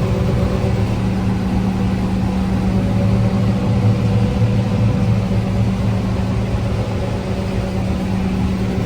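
Tractor engine running steadily, a constant low hum.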